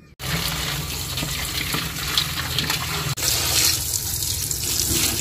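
Water running into a steel bowl and splashing as raw chicken leg pieces are rinsed by hand. There is a brief break about three seconds in.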